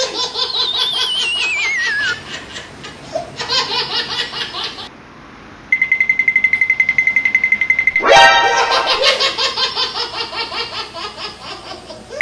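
A string of comedy sound effects: a falling, wavering whistle over laughter, a high pulsing beep about six seconds in, then a rising sweep and more laughter that fades out.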